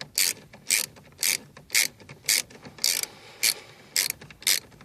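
Socket ratchet wrench clicking in a steady rhythm, about two clicks a second, as it runs a bolt down tight.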